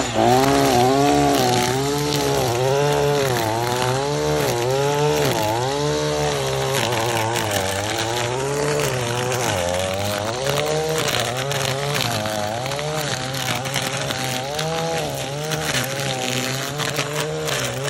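Echo 2620 two-stroke string trimmer running hard while cutting tall grass and weeds. The engine pitch rises and falls over and over, about once a second, as the throttle is worked on and off.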